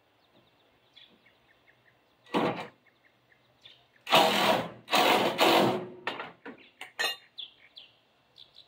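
Metal frame parts handled and worked into place under a van: one rasping scrape about two seconds in, two longer loud scrapes in the middle, then a few short knocks, with birds chirping throughout.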